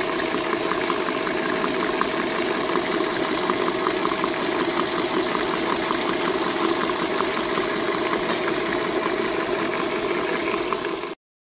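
Electric stand mixer running at speed, its wire whisk beating sponge cake batter in a stainless steel bowl: a steady motor hum with a fast, even ticking. It cuts off suddenly near the end.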